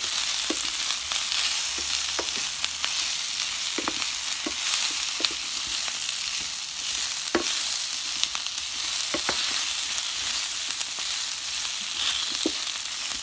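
Pork belly and sliced onions sizzling in oil in a metal frying pan while being stirred with a wooden spatula. Irregular clacks and scrapes of the spatula against the pan sound over the steady hiss of the frying.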